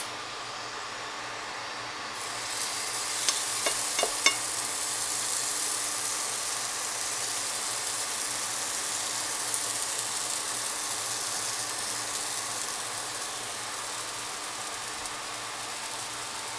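Pecan pancake batter sizzling in hot oil in a nonstick frying pan. The sizzle grows louder about two seconds in as the batter meets the oil, with a few sharp clicks soon after, then settles into a steady sizzle.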